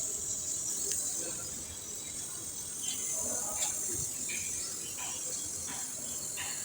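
Brazing torch flame hissing steadily as the copper discharge line is brazed onto the compressor, with a few faint taps.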